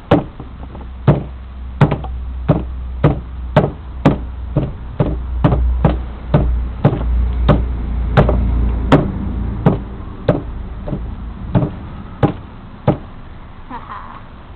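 A hammer repeatedly smashing a banana against a plastic patio table: about twenty sharp blows, roughly one and a half a second, stopping about thirteen seconds in.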